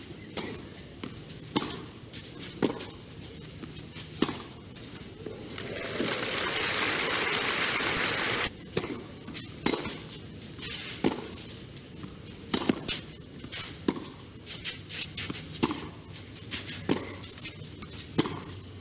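Tennis rally: sharp racket hits on the ball about once a second, coming thicker later on. A couple of seconds of crowd applause come in the middle.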